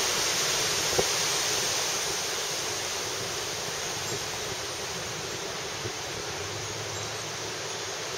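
Steady wind ahead of a severe thunderstorm, rushing through trees and over the microphone and easing slightly. A single short click comes about a second in.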